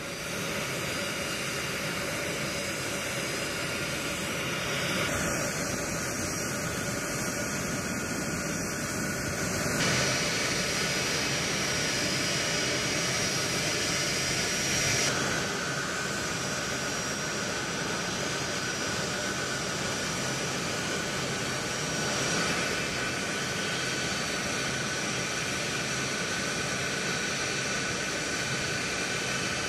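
Boeing C-17 Globemaster III's Pratt & Whitney F117 turbofan engines running on the ground: a steady jet rush with a high whine, the mix shifting slightly a few times.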